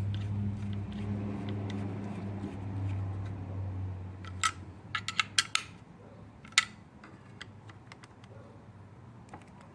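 A low steady hum for about the first four seconds, then a few sharp metal clicks and clinks of hand tools and hardware being handled around the engine cover.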